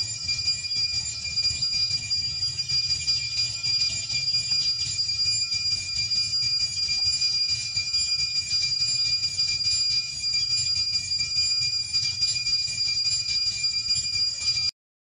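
Steady, high-pitched drone of an insect chorus, with a low rumble underneath; it cuts out briefly near the end.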